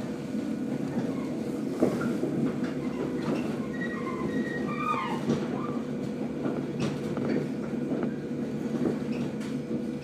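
JR 115 series electric train running, heard from inside the passenger car: a steady rumble of wheels on the rails, with a few sharp clicks from rail joints.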